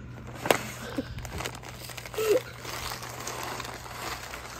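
Brown paper bag crinkling and rustling as it is opened, then wrapped candies sliding out and scattering onto a wooden table, with a sharp tap about half a second in.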